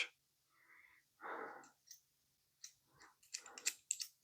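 Faint handling noises from a small metal pipe wrench being turned over and worked by hand. There is a soft scuffing sound about a second in, then a few light clicks and taps near the end.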